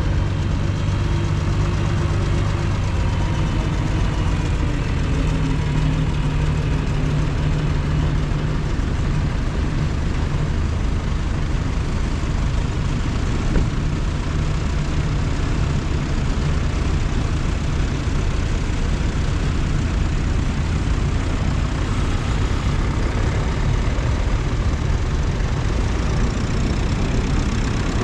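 Several tractor engines running as a slow line of tractors moves past, a steady low engine note with a pitch that falls over the first few seconds. One short knock about halfway through.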